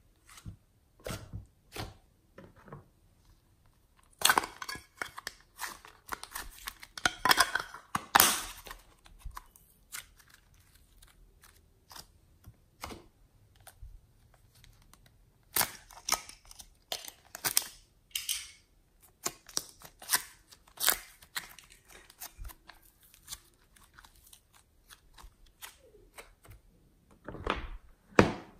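Close-up handling of slime and clay: irregular sticky crackling and tearing noises, in dense runs about four seconds in and again around the middle, with clicks and taps from small plastic slime tubs being handled.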